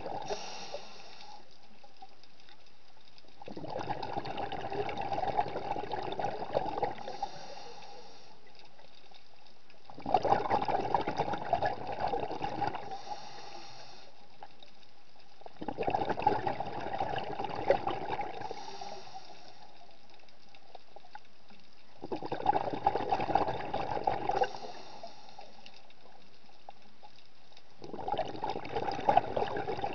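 Underwater bubbling from a scuba diver's exhalations through the regulator, in bursts of about three seconds roughly every six seconds, with a quieter steady hiss between breaths.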